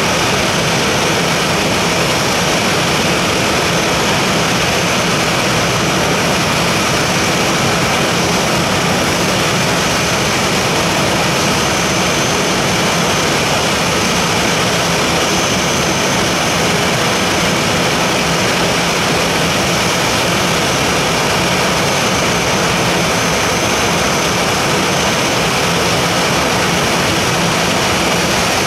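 Boeing 737-800's CFM56-7B jet engines running steadily at idle: an even rush of noise with a faint high whine above it.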